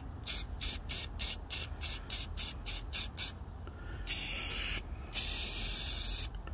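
Rust-Oleum aerosol spray paint can spraying red paint onto PVC pipe. It goes in quick short hissing puffs, about three a second, then two longer sprays near the end.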